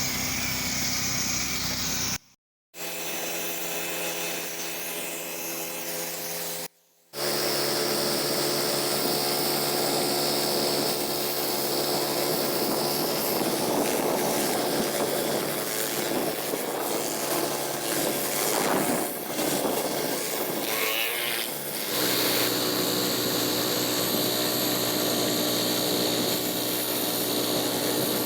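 Pressure-washing rig's engine and pump running steadily, with the hiss of spraying water. The sound cuts out briefly twice early on and shifts in pitch at a couple of points.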